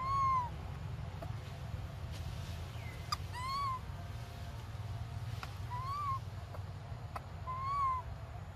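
Long-tailed macaque giving four short whimpering coo calls, each rising and then falling in pitch, over a steady low rumble.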